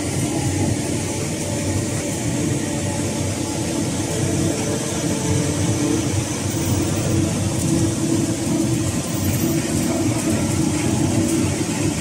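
Cotton-processing machinery, a conveyor feeder and roller, running steadily. It makes a loud, even mechanical noise with a constant hum.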